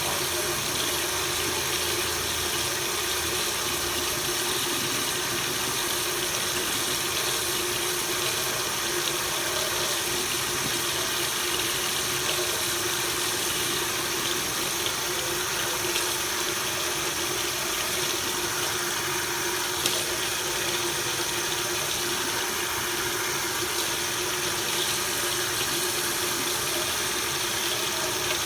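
Water running steadily from a dual-handle Moen kitchen faucet, fitted with new 1224 cartridges, into the sink, with a steady tone under the rush of water.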